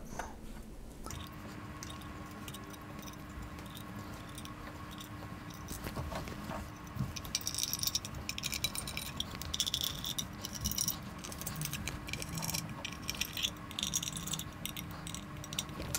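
Small screwdriver driving the cover screws into a metal filter-wheel case: faint ticks and scrapes of metal on metal, which come thicker from about seven seconds in.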